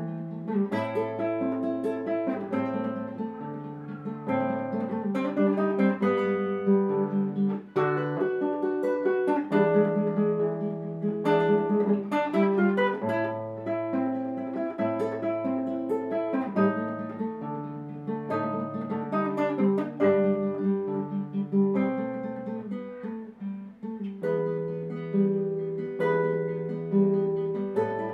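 Solo classical guitar fingerpicked: a melody of quickly plucked notes over a changing bass line, with a brief drop in sound about seven and a half seconds in.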